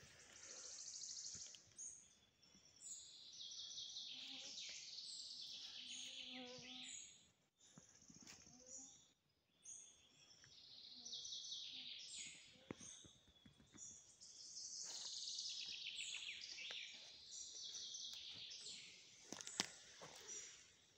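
Wild songbirds singing: repeated fast trilled phrases a second or two long, several falling in pitch, with short high calls in between. A brief knock near the end.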